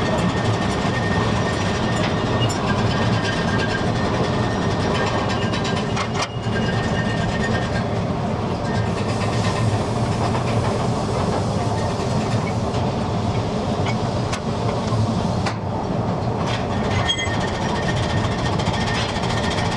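Steady mechanical running noise, with a few sharp clicks and faint high tones that come and go.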